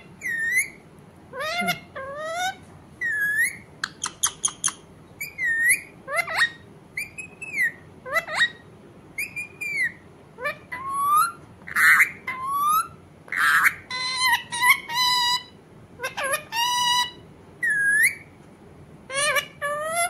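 A green parakeet calling over and over: short dipping and rising whistles, a quick run of clicks about four seconds in, a couple of harsh squawks around twelve seconds, and fast warbling trills a little later.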